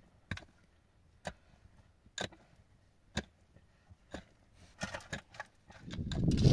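Sharp knocks about once a second, a hand tool striking in steady strokes. Near the end a louder, rough scraping noise sets in.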